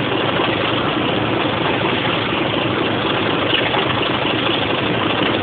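Class 25 diesel locomotive with its Sulzer six-cylinder engine working a train along the line, heard from a window as a steady mix of engine and running noise with no changes.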